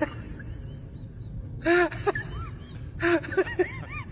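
Two clusters of short, high-pitched vocal calls, each rising and falling in pitch, about a second apart, over a steady low rumble.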